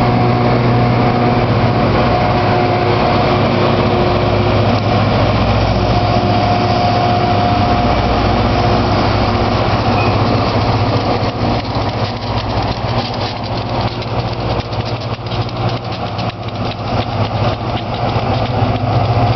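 Rail grinding train passing close: a loud steady diesel engine drone over a dense rushing noise. About eleven seconds in it eases off into a fast, irregular clatter, and near the end the engine drone swells again as another unit approaches.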